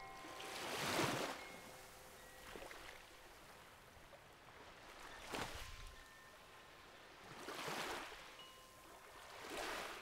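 Small sea waves washing up on a sandy beach, four gentle swells, the loudest about a second in. Faint steady bell tones ring on underneath.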